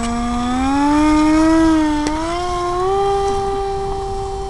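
Radio-controlled Icon A5 model plane's motor and propeller throttling up for its takeoff run. The tone rises in pitch in steps over about three seconds, then holds steady.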